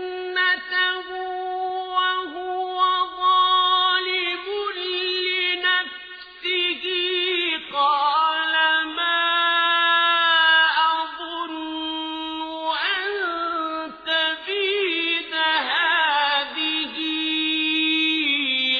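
A man reciting the Quran in a slow, melodic chanted style, holding long notes and ornamenting them with wavering turns, with a few brief pauses.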